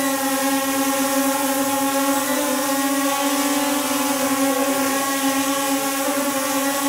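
WLtoys XK X1 quadcopter hovering, its brushless motors and propellers making a steady buzzing hum with several even tones.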